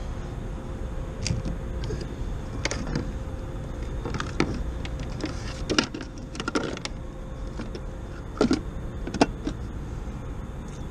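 Scattered sharp clicks and knocks of fishing gear being handled on a plastic pedal kayak, about seven at irregular intervals, over a steady low rumble and a faint steady hum.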